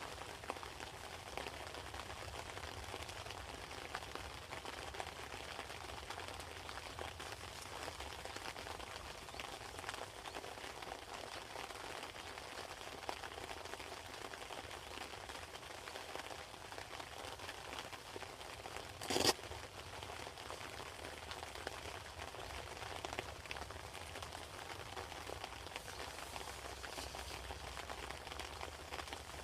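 Steady hiss of water with one short sharp knock about two-thirds of the way through.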